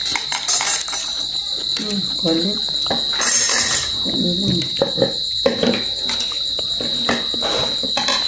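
Crickets chirring in a steady high drone, with scattered clinks of plastic plates and spoons handled at the table and a few brief soft vocal sounds.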